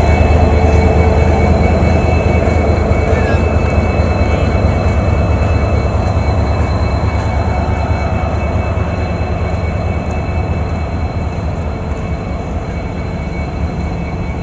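Indian Railways WDP4B diesel locomotive's 16-cylinder two-stroke EMD engine idling at standstill: a steady low engine note with a steady high whine over it, growing gradually fainter toward the end.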